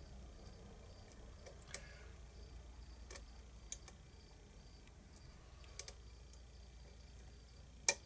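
Scattered small metallic clicks of a hook pick working the pins of a custom challenge lock, about five in all, the sharpest one just before the end. A cricket chirps faintly and steadily in the background.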